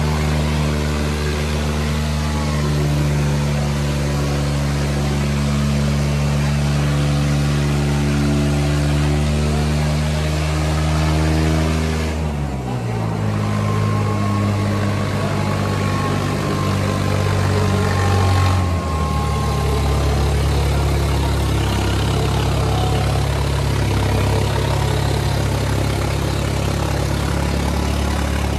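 Diesel engines of a Kubota MU5501 and a New Holland 3600 tractor running hard under heavy load in a tug-of-war pull. The engine note drops about twelve seconds in and shifts again about six seconds later.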